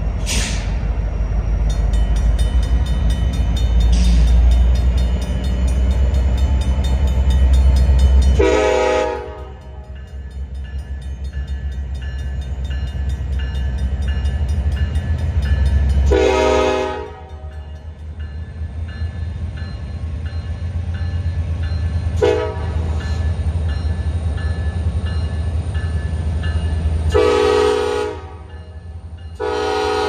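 Diesel freight locomotive's air horn sounding the grade-crossing signal, long, long, short, long, each blast a chord of several tones, over a steady low rumble. A crossing warning bell dings rapidly and evenly through the first several seconds.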